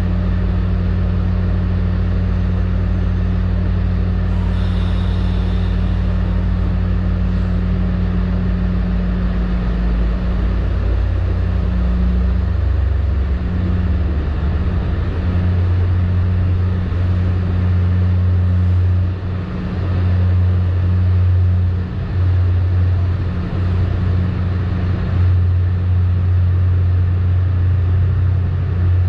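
Steady rumble and low hum inside a commuter rail coach, the hum shifting in pitch about a third of the way through, with a couple of brief dips in loudness later on.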